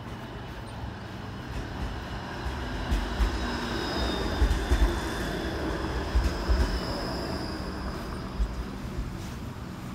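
A TTC Flexity Outlook low-floor streetcar passing close by: the rumble of its steel wheels on the rails grows louder, peaks about four to seven seconds in with several low thumps, then eases as it goes by. Faint, thin, high ringing tones from the wheels sound over the rumble.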